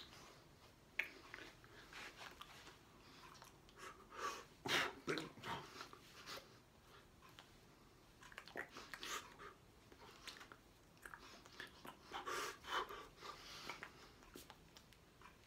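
Soft, scattered rustles, brushes and light slaps of hands against each other, the body and clothing while signing, mixed with breathing and mouth sounds. The strongest bursts come about four to five seconds in and again around twelve to thirteen seconds in.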